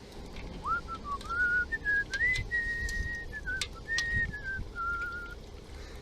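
A person whistling a slow tune, with a few sharp clicks in the middle.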